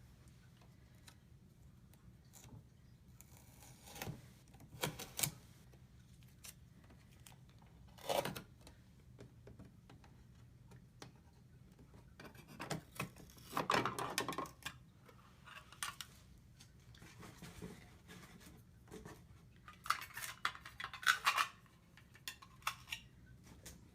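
An espresso machine's parts and packaging being handled and unpacked: scattered clicks and knocks with bursts of rustling, loudest twice in the second half.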